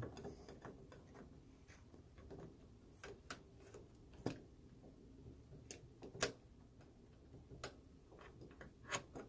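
Scattered light clicks and taps from a sheet-metal bezel bracket and its screw being handled and pushed into place against a dispenser housing. The clicks are irregular, the sharpest about six seconds in.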